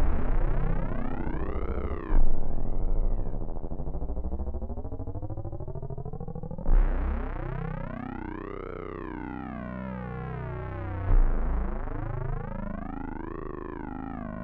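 Electronic synthesizer music: a deep note struck at the start and again about 2, 7 and 11 seconds in, with a slow sweep that rises and falls in pitch over the sustained sound.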